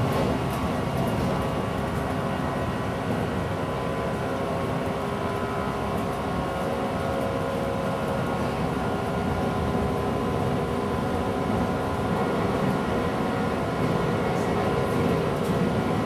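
A 169 series electric train heard from inside the car while running at speed: a steady rumble of wheels on rail, with a faint steady hum over it.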